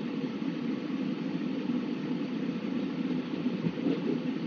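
Steady hum of a car's engine and running noise heard from inside the cabin as the car creeps along at walking pace in queued traffic.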